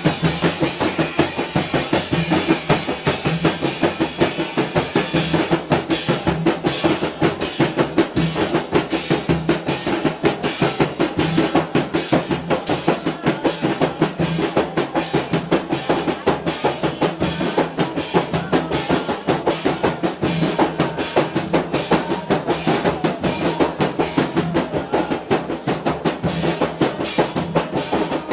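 Rebana Mandar frame drums beaten by hand in a fast, unbroken interlocking rhythm, joined by a drum played with sticks. For the first several seconds a cymbal struck with a stick rings over the drumming.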